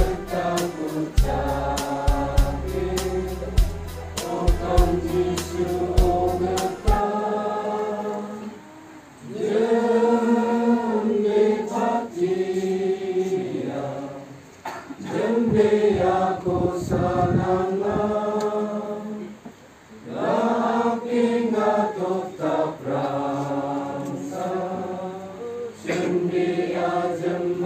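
Congregation singing a hymn together in many voices, in phrases broken by short pauses. A steady rhythmic tapping with low thumps runs under the singing for the first several seconds, then stops.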